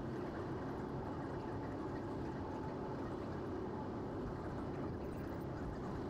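Faint, steady road and engine rumble inside the cab of an RV driving at highway speed.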